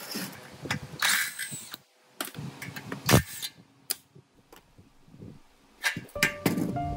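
Hand-tool work on pump parts: irregular knocks, clatter and scraping, with a brief high squeal in the first two seconds, one loud knock about three seconds in and a cluster of knocks near the end.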